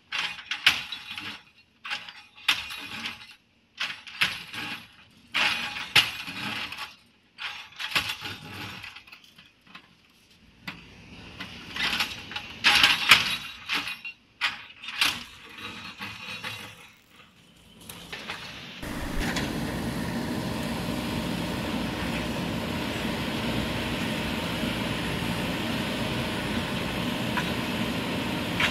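Concrete and brick rubble cracking, clattering and crunching in a long string of sharp breaks as a JCB 3DX backhoe's bucket tears down a house's slabs and walls. About two-thirds of the way in, this gives way to the steady running of the backhoe's diesel engine.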